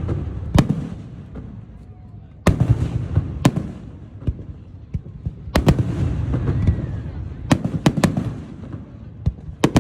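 Aerial fireworks shells bursting: sharp bangs, some in quick pairs and clusters, each trailing off in a rolling rumble.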